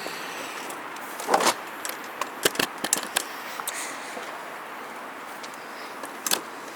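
Scattered light clicks and knocks of door-panel parts and clips being handled and fitted, the loudest about a second and a half in, a quick cluster a little later and one more near the end.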